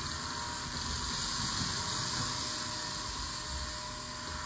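TICWELL Whale W1 cordless wet-dry stick vacuum running with a steady hiss, sucking dry Cheerios up off the floor.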